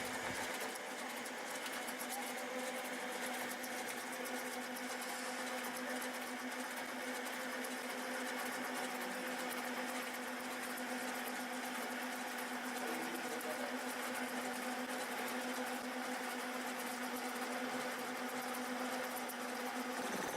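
Manual centre lathe running steadily with a knurling tool pressed into the turning workpiece, a constant mechanical hum with a fine rapid buzz.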